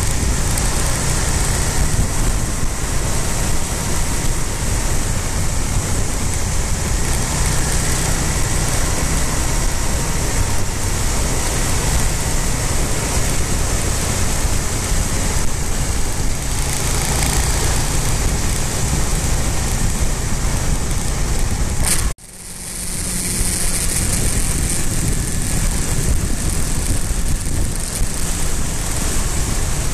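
Motorcycle running at road speed, its engine drone buried under loud wind rush on the onboard camera microphone. About two-thirds of the way through, the sound cuts out abruptly and then comes straight back.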